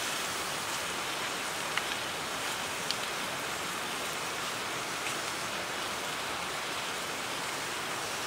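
Steady rain falling, an even hiss, with a few faint clicks about two, three and five seconds in.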